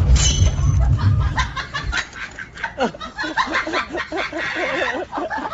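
A person laughing in quick repeated bursts, after a low rumbling noise through the first two seconds.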